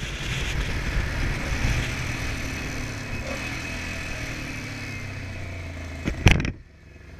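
Honda Transalp XL700V V-twin motorcycle engine running steadily while riding, with wind rush. About six seconds in there is a sudden loud knock, then the sound drops to a quieter, steady engine idle.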